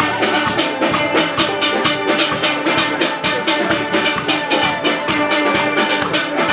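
Steel band playing a lively tune: ringing steelpan melody over a steady, quick drum beat.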